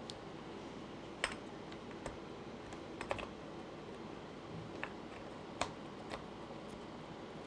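Scattered small clicks and taps of hands handling a 1/10 RC car's plastic chassis and electric motor while the motor is shifted in its mount to line the pinion up with the spur gear. There are about seven clicks, the loudest about a second in and near the middle, over a steady low hiss.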